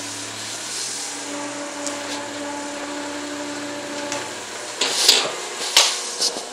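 Ford Fiesta 1.0 making a steady whining hum, then two or three loud harsh bursts of noise about five seconds in: the strange noise the car makes at times when reversing, which the owner likens to an ox cart.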